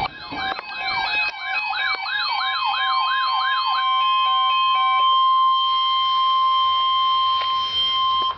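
Weather radio alert tones: a warbling siren-like tone sweeping up and down about three times a second for the first four seconds, over the steady 1050 Hz NOAA Weather Radio warning tone, which then holds alone and cuts off abruptly near the end. It signals the start of an emergency alert broadcast.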